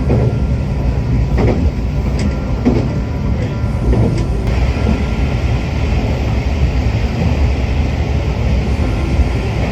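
Diesel railcar running along the track, heard from inside the car: a steady low rumble, with a few short knocks in the first four seconds.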